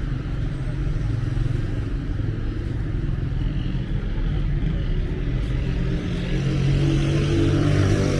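City street traffic: a steady rumble of car and motorbike engines, with one engine growing louder toward the end as it passes close.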